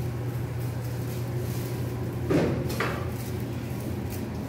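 Elevator's sliding doors moving, with a sharp knock about halfway through and a lighter one just after, over a steady low hum.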